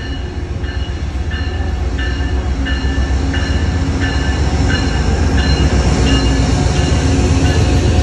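Amtrak GE Genesis diesel locomotive rolling past with its bell ringing about one and a half strokes a second, over a deep engine and wheel rumble that grows louder as it draws level.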